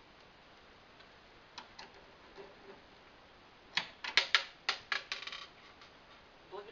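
A small screw dropped, clattering in a quick run of sharp ticks and bounces on a hard surface from about four seconds in. A few faint handling clicks come before it.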